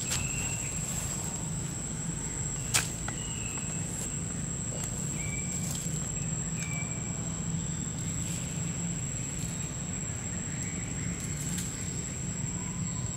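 Steady high-pitched insect drone over a low background hum, with a few short high chirps and one sharp click about three seconds in.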